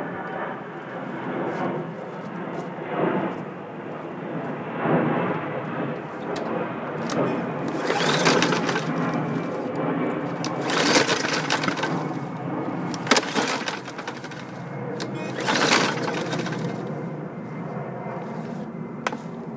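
Briggs & Stratton 140cc engine on a push mower being pull-started several times, the recoil rope rasping out and the engine cranking over without firing. The owner suspects low compression or timing that is off.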